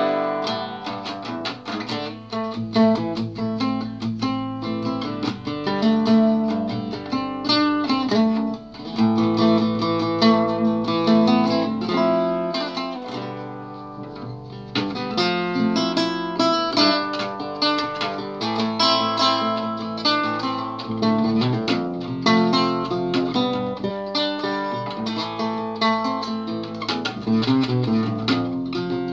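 Solo classical guitar fingerpicked, playing a continuous instrumental melody over plucked chords. It softens for a few seconds near the middle, then picks up again.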